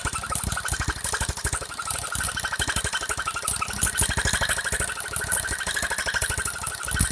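Homemade scroll saw running, its blade stroking up and down through a small piece of wood with a steady, fast rattling chatter.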